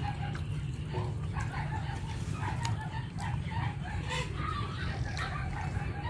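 Chickens clucking in short, broken calls over a steady low rumble, with a few sharp clicks.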